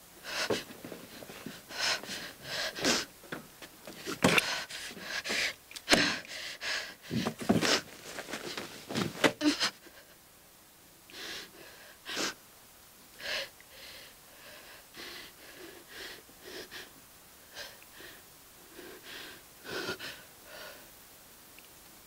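A woman gasping and panting in short, ragged breaths, fast and loud for about ten seconds, then slower and softer, spaced gasps.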